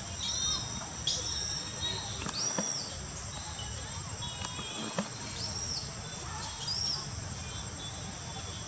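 Outdoor ambience: birds chirping in short repeated calls over a steady high insect drone, with a low rumble underneath.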